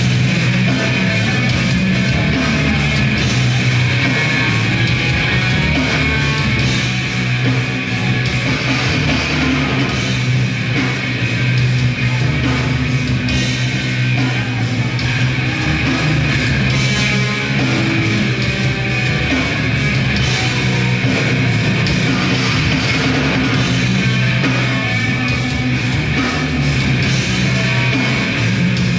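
Grindcore band playing live and loud: heavily distorted guitars and bass over fast, hammering drums.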